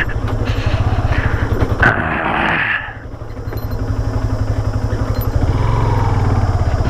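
Motorcycle engine running while riding, its low firing pulse steady throughout, with wind noise on the microphone that drops away about three seconds in as the loudness dips, then the engine picks up again.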